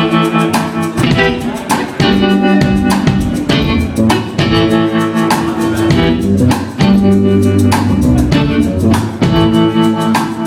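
Live band playing an instrumental passage with no singing: guitar and bass notes over a steady drum beat.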